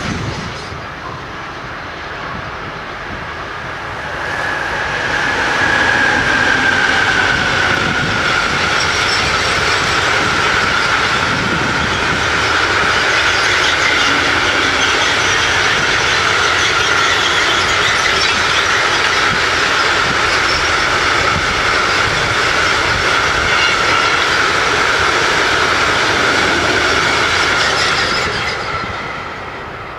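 A long freight train of hopper wagons passing close by, its wheels rumbling and clattering on the rails with a steady high squeal that drifts slightly lower. The noise swells about four seconds in and fades near the end.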